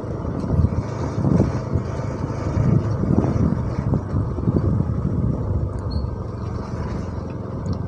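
Motorcycle engine running steadily at low speed, heard from the rider's seat, with the rumble of tyres rolling over a rough gravel-and-dirt lane.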